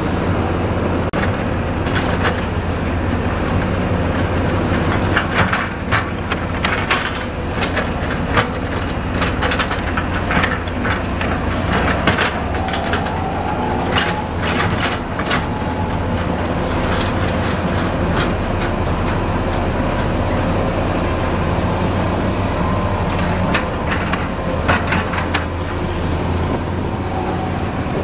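Heavy construction machinery at work: diesel engines running steadily with a low hum, with repeated metallic clanks and knocks through it.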